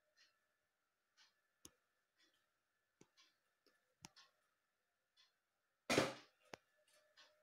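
Handling noise from a handheld phone camera: scattered faint clicks and short rustles, with one louder rustling burst about six seconds in and a sharp click just after, over a faint steady hum.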